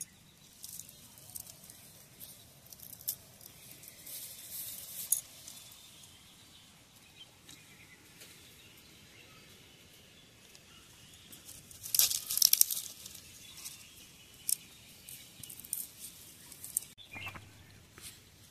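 Fingers breaking apart charred roasted fish on a dry leaf plate: scattered crackling and tearing, with a louder burst of crackles about twelve seconds in.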